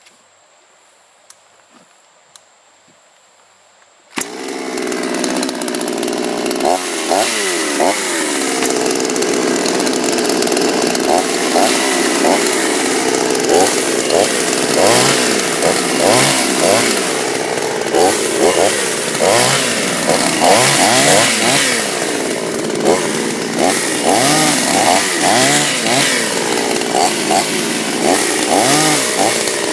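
Chinese clone two-stroke chainsaw cutting maple firewood, coming in suddenly about four seconds in after a few seconds of faint background with a couple of small clicks. The engine note keeps rising and falling as the chain bites into the wood and frees up again.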